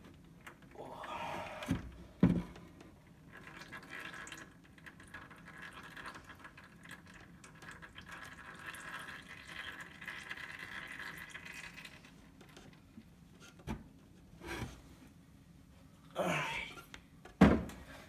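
Ratchet wrench clicking in runs as bolts are backed out of a 163 cc snowblower engine's side cover, with sharp metal clanks about two seconds in and a louder one near the end.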